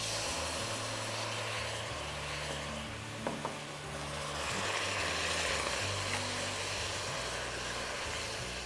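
Water sizzling and hissing steadily in a hot, dry stainless-steel wok over onions and dry-roasted spices, steam rising as it boils off. The hiss swells a little midway, with a light clink about three seconds in.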